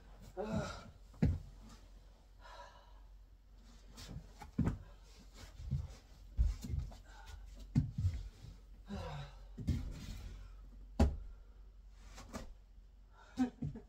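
Scattered knocks and thumps of someone moving about and handling things around a wooden loft bed frame, three sharper knocks standing out. Between them come short breathy exhales and low murmurs.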